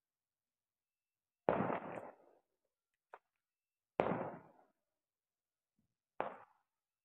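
Three firecracker bangs, about two seconds apart, each sharp at the start and trailing off in an echo, with a faint click between the first two.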